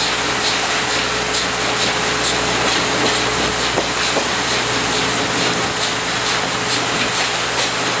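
Steam train heard from a passenger coach behind C58 239 as it works up the grade: a steady, loud rush of locomotive steam and wheels running on the rails, with faint irregular ticks and a thin steady tone underneath.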